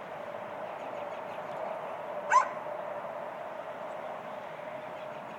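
A dog gives a single short, high-pitched yelp about two seconds in, over a steady faint drone.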